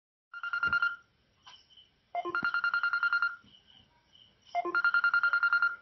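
Mobile phone ringtone for an incoming call: three bursts, each about a second long, of a rapidly pulsing electronic tone.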